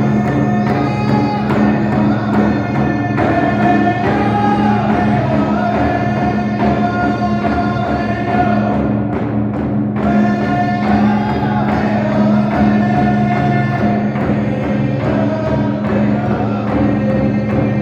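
Indigenous drum group singing one melody together over a steady beat on the drum. The voices break off for about a second near the middle while the drum keeps the beat, then the song resumes.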